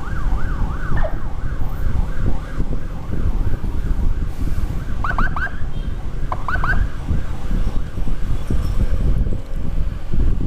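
Emergency siren in a fast yelp, wailing up and down about three times a second and fading away over the first several seconds. Two short bursts of quick rising whoops come about five and six and a half seconds in. Throughout is the steady low rumble of a moving motorcycle and wind on the microphone.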